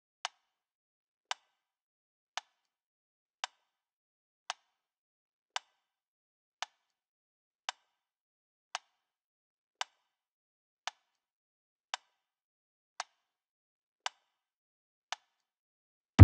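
Sharp single clicks ticking at a steady pace of about one a second, fifteen in all, with dead silence between them.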